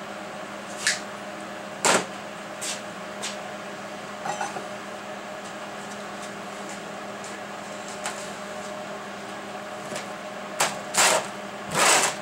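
MIG welder humming steadily while switched on between welds, with a few scattered sharp ticks. Near the end come louder rustles and knocks as leather welding gloves handle the freshly welded steel bracket.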